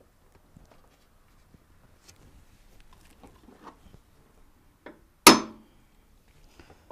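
A hammer strikes a center punch once against the truck's sheet-metal inner fender, a single sharp metallic crack with a brief ring about five seconds in, marking the spot for a drill hole. Before it, only faint clicks of the punch and hammer being handled.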